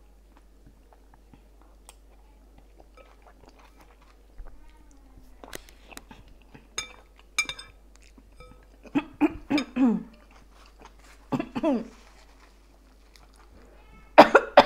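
A person eating curry with a spoon from a glass bowl: quiet chewing, a few sharp clinks of the spoon against the bowl around the middle, and short mouth and throat sounds. Near the end comes a loud cough into a tissue.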